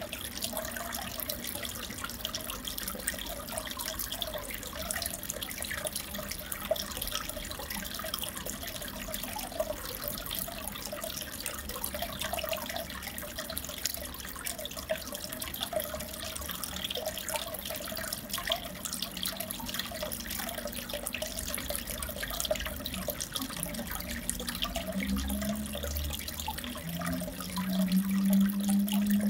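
Aquarium water trickling and bubbling steadily. A low hum comes in near the end and grows louder.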